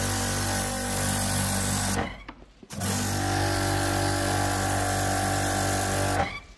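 Pressure washer running, its motor humming steadily under the hiss of the water jet on stone paving. It cuts out twice for about half a second, about two seconds in and just before the end, then starts again.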